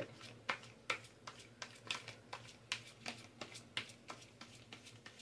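A deck of playing cards being shuffled by hand: a run of sharp card slaps and flicks, two or three a second.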